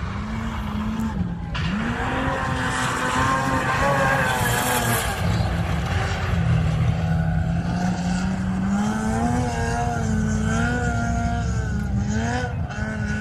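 Off-road race car engine running hard, its revs rising and falling over rough ground.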